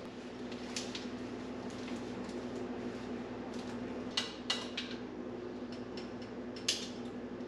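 Metal tongs clicking against a plate a few times while turning pieces of fish, over a steady low hum.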